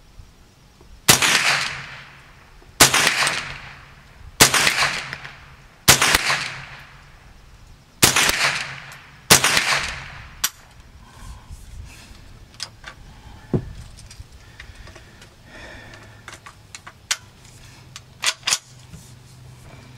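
A .22 rifle (Ruger 10/22) firing six shots about one and a half seconds apart, each crack ringing out and fading. After them come several fainter sharp cracks.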